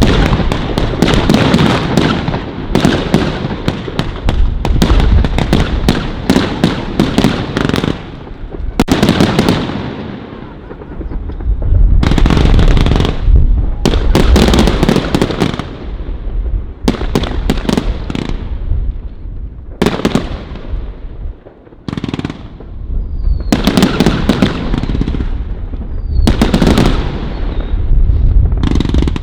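Pryme 'Dakyn' firework going off: a rapid, loud barrage of shots and bangs in several waves, each dying away briefly before the next salvo.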